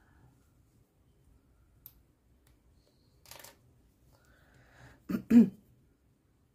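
A person coughing: two quick bursts close together about five seconds in, the loudest sound here. Before it, a faint click and a brief soft rustle.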